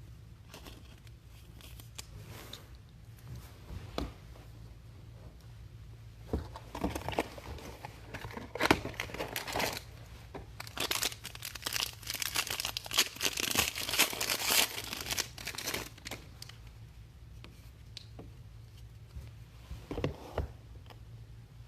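Trading-card packs being torn open and their wrappers crinkled, with a few sharp taps from cards and packaging being handled. The tearing and crinkling come in bursts through the middle stretch and are loudest near the middle, over a low steady hum.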